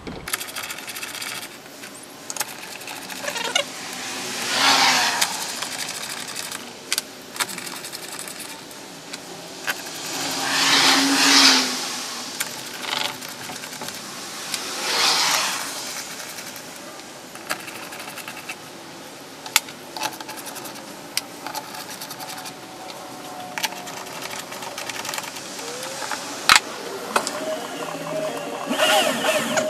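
Screws being driven into the transaxle's aluminum cover in three short runs of about a second each, with sharp clinks of metal tools and screws in between.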